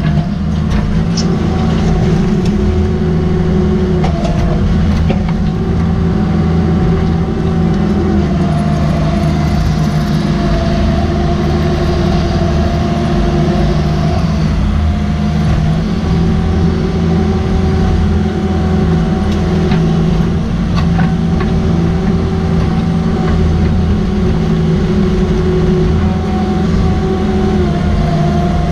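Cat 305.5E mini excavator's diesel engine running steadily under load, heard from the operator's seat, with a hydraulic whine that comes and goes every few seconds as the boom, swing and bucket work. A few short knocks from the bucket in rocky ground.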